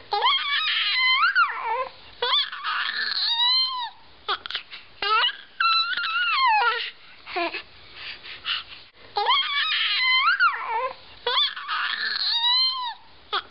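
A baby squealing: high-pitched cries that glide up and down in pitch, coming in runs of several squeals with short gaps between them.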